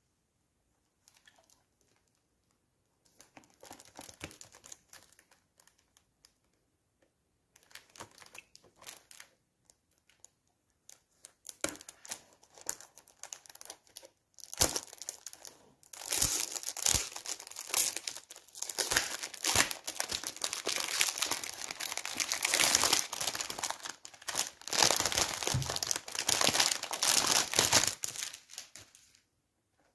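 Cellophane shrink-wrap on a perfume box crinkling as fingers pick at it and peel it away. There are short bursts at first, then continuous crinkling from about halfway through, which stops just before the end.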